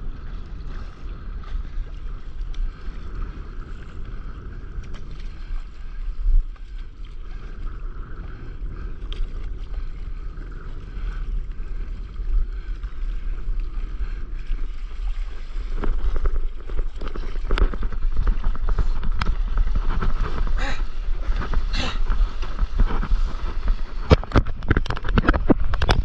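Wind buffeting the microphone, with water rushing and splashing around a stand-up paddleboard as it rides a wave; the splashing gets louder and busier about sixteen seconds in.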